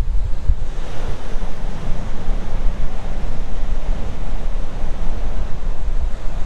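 Ocean surf breaking and washing up the beach, swelling about a second in, with wind buffeting the microphone.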